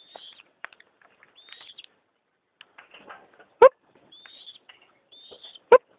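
Female crested goshawk giving short, high calls, one every second or so, with faint scattered clicks. Two sharp, loud clicks stand out about two seconds apart, the first around the middle and the second near the end.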